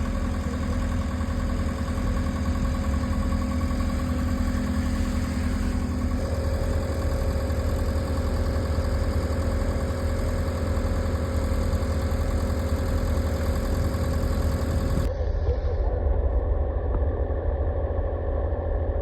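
Engine of heavy job-site machinery running steadily with a low drone and hum; its tone changes abruptly about six seconds in and again near fifteen seconds.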